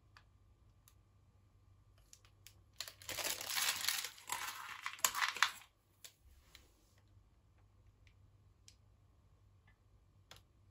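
Plastic crinkling and rustling as it is handled, for about three seconds starting about three seconds in, with a few faint light clicks before and after.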